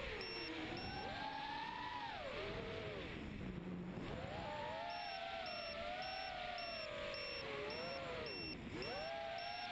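Lumenier QAV180 mini quadcopter's four 2300kv brushless motors on 4-inch bullnose props whining, the pitch rising and falling continuously with throttle. About three to four seconds in the whine sinks low and almost cuts out as the throttle comes off, then climbs back, with another short dip near the end.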